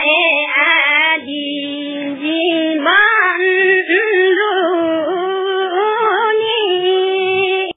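A high voice singing a slow melody with long, wavering held notes. It cuts off suddenly at the very end.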